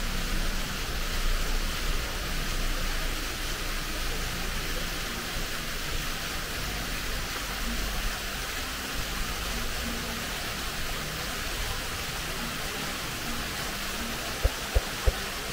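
Steady rushing outdoor noise, with three short sharp knocks close together near the end.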